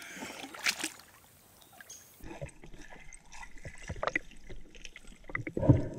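Shallow creek water sloshing and splashing as a snorkeler in a wetsuit ducks his face in. About two seconds in, the sound turns muffled, heard through an underwater camera, with scattered clicks and knocks of gravel shifting on the creek bed and a louder thump near the end.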